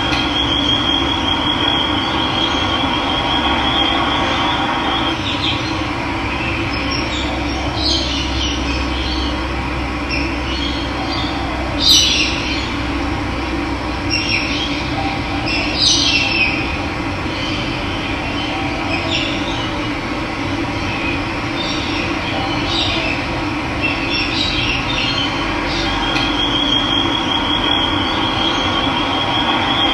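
Steady rush of running water with birds giving short chirps several times through it. A high, fast trill sounds in the first few seconds and again near the end.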